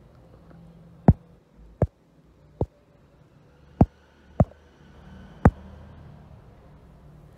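Six sharp thumps at irregular intervals, about a second apart, over a faint low hum.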